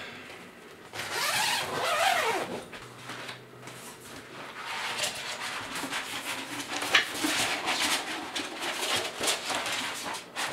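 Light tent's silver-lined fabric cover rustling and crinkling as it is pulled off the frame, followed by rustling of the rolled paper backdrop being handled, with a sharp click about seven seconds in.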